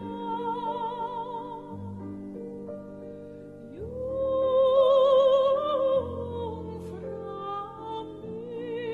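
Background music: an operatic voice sings long notes with wide vibrato over sustained accompaniment. About four seconds in it slides up into its loudest held note.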